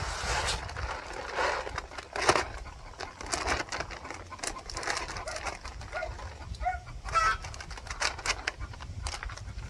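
Poultry feed pellets poured from a paper sack into a galvanized metal trash can: a steady rattling rush of pellets striking metal and each other, with the sack rustling. A few short poultry calls come about two-thirds of the way in.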